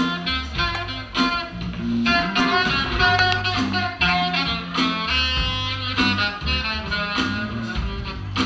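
Live band playing an instrumental passage with a steady beat of drum hits, a bass line and sustained melody lines from guitar and horn-like instruments.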